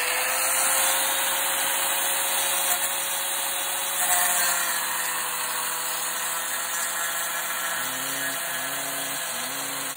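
Angle grinder running at full speed with a steady whine, its disc grinding along the edge of a motorcycle front fender to trim it back.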